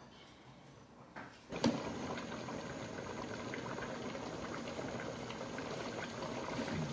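Pot of nam ngiao broth bubbling steadily on the boil from about a second and a half in, with a metal ladle clinking once against the pot as it starts and a few faint ticks of the ladle after.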